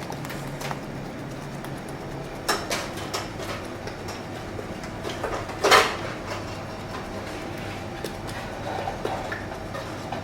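Restaurant kitchen background: a steady low mechanical hum with scattered clicks and knocks, the loudest about five and a half seconds in.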